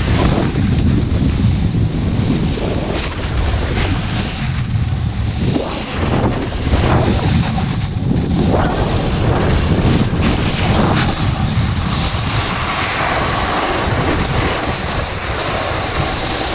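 Heavy wind rush buffeting a pole-mounted action camera's microphone during a fast descent down a ski slope, gusting unevenly, with a brighter hiss of edges sliding over snow in the last few seconds.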